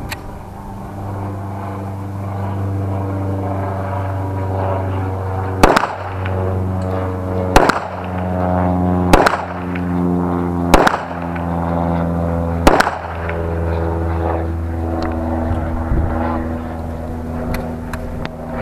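Five pistol shots, one every one and a half to two seconds. Under them an engine runs steadily, starting about a second in, its pitch shifting a little in the middle.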